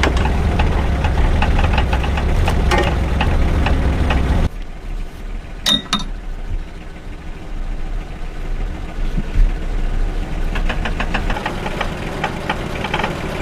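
An engine running with a fast, knocking beat. It cuts off abruptly about four and a half seconds in, leaving a quieter stretch with one sharp squeak, and the rapid knocking comes back near the end.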